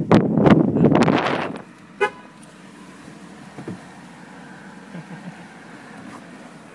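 A car pulling away, loud for the first second and a half, then one short toot of its horn about two seconds in as it leaves.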